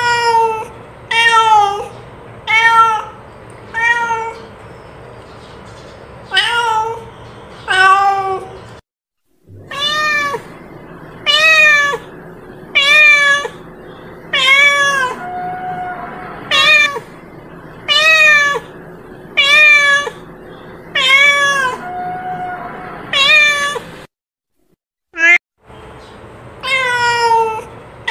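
Domestic cat meowing over and over: short, arched meows about one every second and a half, a steady calling run that breaks off twice for a moment.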